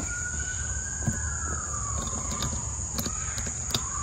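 A distant siren wailing, its pitch rising slowly and then falling, over a steady high drone of insects. A few faint sharp clicks come from the kayak seat's plastic strap buckles being handled.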